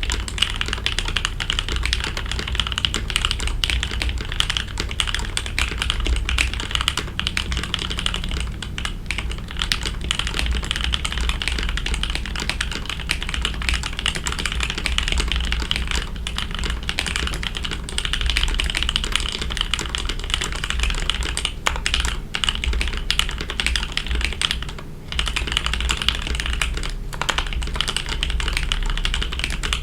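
Continuous typing on a mechanical keyboard with factory-lubed Gateron Oil King linear switches, a polycarbonate plate and clear ABS keycaps: a dense run of smooth keystrokes with no switch click, easing off briefly about 25 seconds in.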